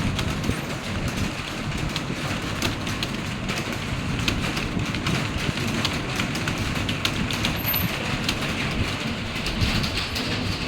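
Fast computer-keyboard typing: a rapid, irregular stream of key clicks over a low background rumble.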